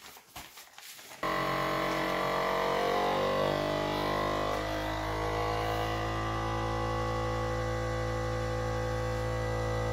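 FoodSaver vacuum sealer's pump switching on abruptly about a second in and running with a steady motor hum, drawing the air out of the bag around a smoked salmon fillet. Before it starts, faint plastic handling clicks.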